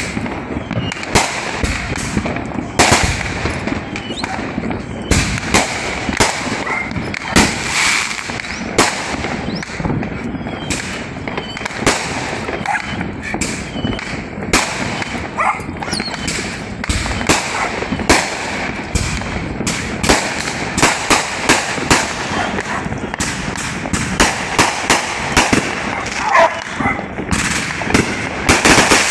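Fireworks going off in rapid, irregular succession: dozens of sharp bangs and pops over a continuous crackle.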